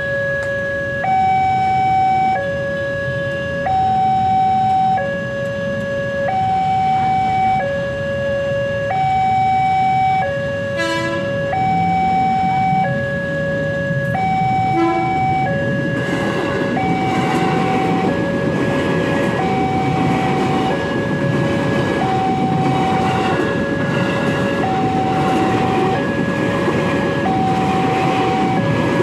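Railroad level-crossing warning alarm sounding a steady two-tone signal, alternating a lower and a higher pitch about once a second. About halfway through, the rumble of an electric commuter train rises beneath it and goes on as the train passes the crossing.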